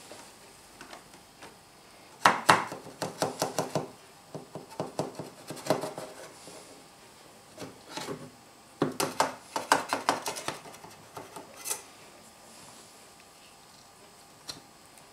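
Knife blade scraping and clicking against the metal rim of a springform cake pan as it is worked around a freshly baked cake to loosen it, in several bursts of quick clicks and scrapes.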